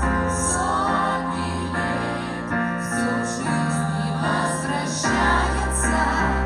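Music with singing: a song in held, sustained notes over a steady bass line.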